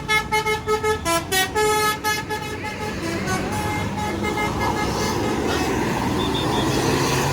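A bus's basuri telolet horn playing a quick tune of short stepped notes, stopping about two and a half seconds in. The passing bus's engine and road noise carry on after it.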